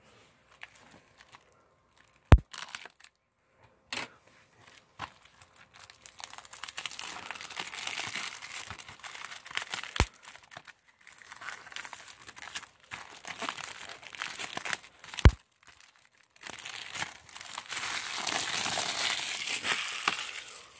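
Plastic shrink-wrap crinkling as it is torn and peeled off a Blu-ray case, in long rustling stretches. A few sharp clicks come in the first half.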